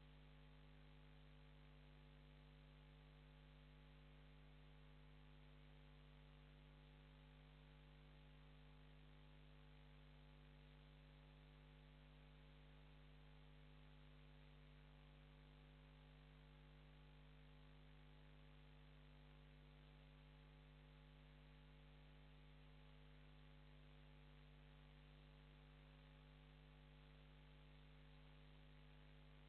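Near silence: a faint, steady electrical mains hum with a low hiss, unchanging throughout.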